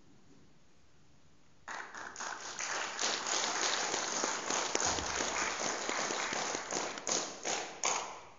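Audience applauding: after a short quiet, clapping breaks out about a second and a half in, runs thick and even, and thins to a few last separate claps before stopping near the end.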